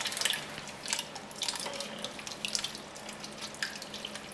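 Liquid pouring and splashing, with irregular wet spatters and small clicks.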